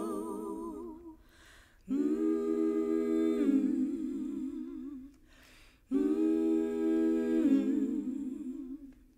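Female vocal group singing a cappella in close harmony: two long wordless phrases, each dropping to a lower chord partway through, after the end of the previous sung line fades out.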